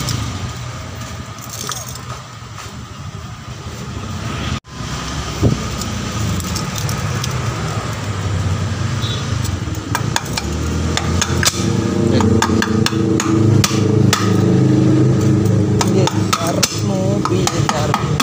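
Metal hand tools clinking and knocking against each other and the floor, with a run of sharp knocks from about ten seconds in, over a steady low mechanical hum.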